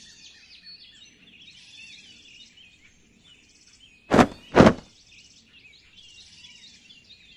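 Continuous chorus of small birds chirping and twittering. About four seconds in come two loud, harsh cries half a second apart.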